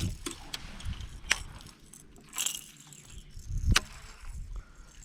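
A few scattered knocks and clicks from gear being handled, the clearest about a second in and near the end, with a brief hiss midway.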